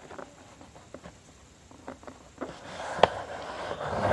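A sheet of copy paper being handled and folded on a table: soft rustling with light scattered taps, a sharp tap about three seconds in, and louder rustling near the end.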